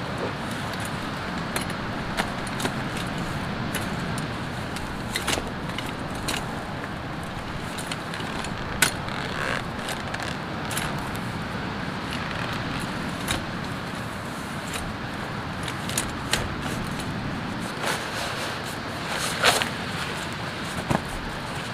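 Folding camp cot being unfolded and set up: its metal frame clicks, clacks and rattles in a string of sharp, separate knocks as the legs are opened and locked. Under it runs a steady rushing background noise.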